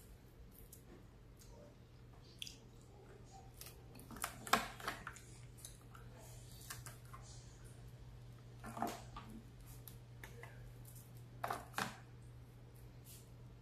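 Fingers picking apart fried fish and handling the plate and foam sauce bowls: faint clicks and rustles, with short crackles about four, nine and twelve seconds in, over a steady low hum.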